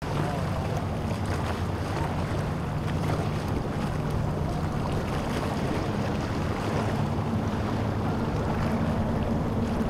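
Boat motor running steadily under way through chop, with surf and wind noise on the microphone.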